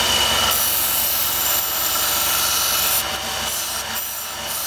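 Mitered chromoly steel tube edge being ground on a running 1x30-inch belt sander to take off the burr: a steady abrasive hiss of steel on the belt over the sander's motor hum. The grinding is heaviest for the first few seconds, then lighter and in short touches.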